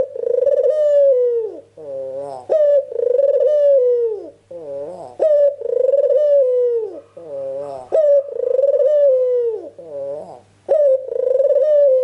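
White Barbary dove (puter) cooing steadily in repeated phrases, about one every two and a half seconds: each a loud drawn-out coo that drops in pitch at its end, followed by a softer lower note. This is the bird's full cooing song used as a lure call to make other doves answer.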